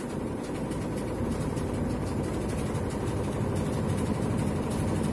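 Whirlpool White Magic Pro XL 800s washing machine running its spin cycle: a steady low hum with a vibrating noise, slowly getting louder as the drum speeds up.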